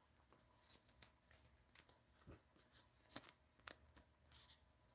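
Near silence with a few faint, scattered clicks and taps, like small objects being handled.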